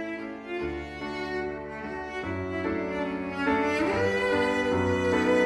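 Background music of bowed strings, violin over cello, playing slow held notes over a bass line, swelling louder about three and a half seconds in.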